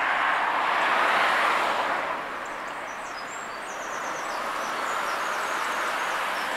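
A car's engine and tyres on tarmac, swelling about a second in and again as a small car drives past near the end, with faint bird chirps.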